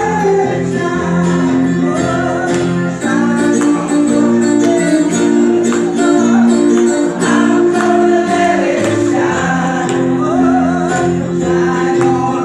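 Music: singing over held chords.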